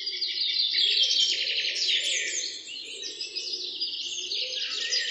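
Dawn chorus of songbirds: many overlapping rapid chirps and trills, starting suddenly.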